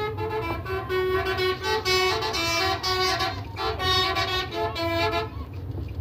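Bus's 'telolet basuri' musical horn playing a quick tune of stepped notes over the bus's engine running; the tune stops about five seconds in.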